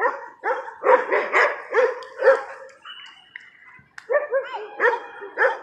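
Pit bull-type dogs barking in play: short, high, yappy barks in quick runs, about ten in all, with a pause of a second or so midway.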